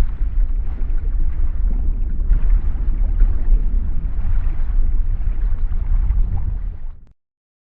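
Wind buffeting the microphone: a loud, low rumbling noise that cuts off suddenly near the end.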